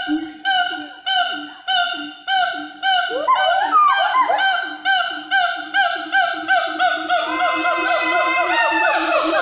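Wild Bornean gibbons, called 'wawa' locally, singing in the forest canopy. A steady series of hooting notes comes about twice a second, and about three seconds in more voices join with rising and falling whoops that overlap and crowd together toward the end.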